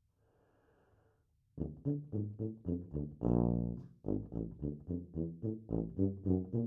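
PT6P CC tuba with a Marcinkiewicz Rose mouthpiece, played solo: after about a second and a half of near quiet with a faint hiss, it starts with short detached notes, holds one note for most of a second, then plays quick detached notes at about four a second.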